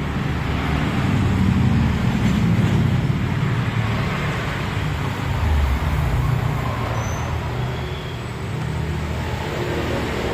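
Road traffic noise: a steady low rumble that swells a little about two seconds in and again around six seconds.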